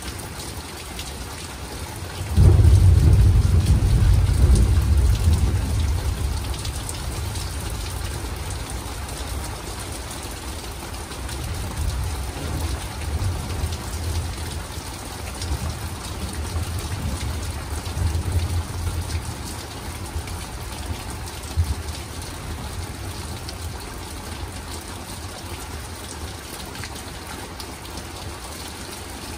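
Steady rain falling, with a sudden thunderclap about two seconds in that rumbles on for a few seconds. Further weaker rolls of thunder follow in the middle.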